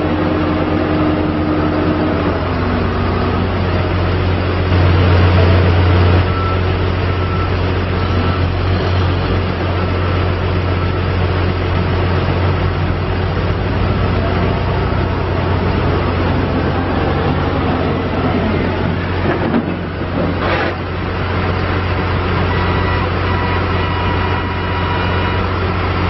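John Deere 310J backhoe loader's diesel engine running steadily with a low drone as the machine drives off across the yard and back, briefly louder about five seconds in.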